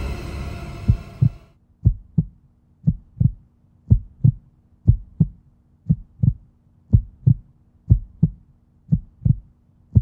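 Eerie soundtrack music fades out over the first second and a half. A heartbeat sound effect follows: paired low thumps (lub-dub) repeating steadily about once a second over a faint low hum.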